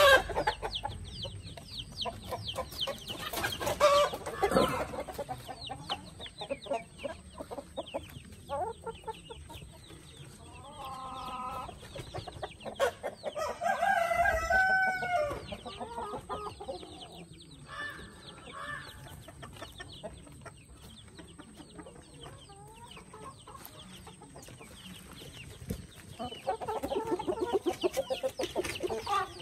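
Brahma chickens clucking and calling, with a rooster crowing about halfway through and a burst of rapid clucking near the end.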